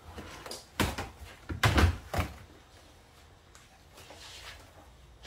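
Plastic freezer baskets clattering as they are lifted and set into place in a chest freezer: several sharp knocks in the first two seconds or so, then softer handling noise.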